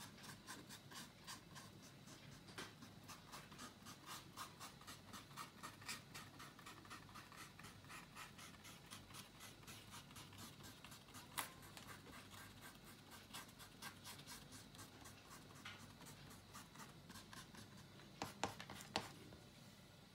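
Faint, quick, repeated scratching strokes of a paintbrush working across a painted board, several strokes a second, thinning out in the second half, with a few sharper taps near the end.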